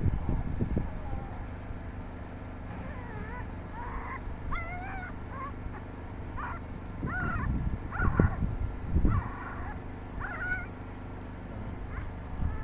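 A starving young puppy whimpering in a string of short, high, wavering cries, with gusts of wind rumbling on the microphone.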